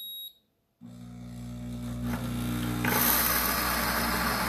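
Pampered Chef Deluxe Cooking Blender grinding whole coffee beans on its grind setting: a short beep from its control panel, then under a second in the motor starts with a steady hum that grows louder, and about three seconds in the blades break into the beans with a dense grinding rattle.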